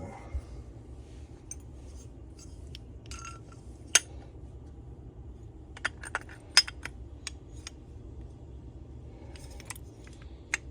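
Small metal tools and engine parts clinking and tapping against each other and the workbench: a dozen or so scattered sharp clicks, the loudest about four seconds in and again about six and a half seconds in.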